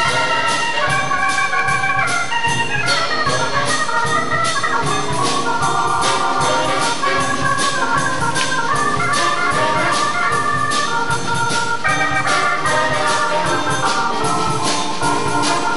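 Hammond B3 organ taking the lead in a live big-band jazz tune, playing shifting chords and runs over a steady drum-kit beat with cymbal strokes.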